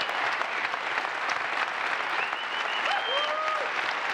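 Large audience applauding steadily, a sustained ovation.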